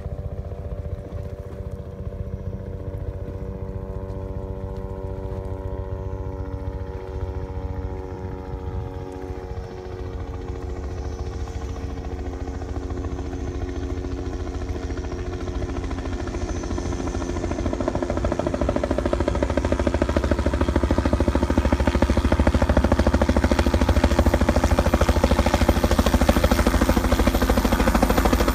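Helicopter flying in to land, a steady hum from its engine and rotor that slowly falls in pitch, with the fast chop of the rotor blades growing louder over the last ten seconds as it comes close overhead.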